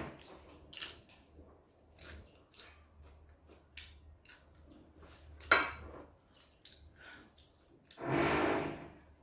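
Close-up eating sounds: scattered short clicks and smacks of chewing and utensils. The sharpest comes about five and a half seconds in. A short hummed voice sound follows near the end.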